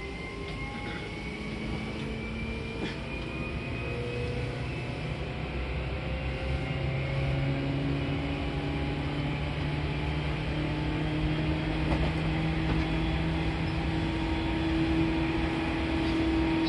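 Seibu New 2000 series electric train heard from inside a passenger car, running between stations: the whine of its traction motors and gears rises slowly in pitch and grows louder as the train gains speed, over the steady rumble of the wheels on the track.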